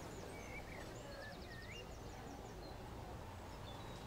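Recorded birdsong ambience, faint: several birds giving short whistled chirps that bend up and down, with quick rapid trills about a second in, over a low steady hum.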